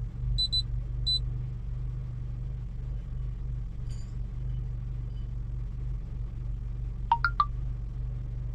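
Honda Accord engine idling steadily, heard from inside the cabin. Short high-pitched beeps from the scan tablet come about half a second and a second in, and a quick three-note notification chime from the tablet near the end.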